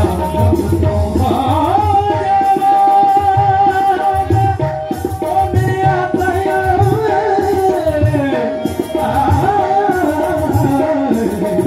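Live amplified devotional singing: a male voice holds long, wavering notes over a steady drone and regular hand-drum beats, played through PA speakers.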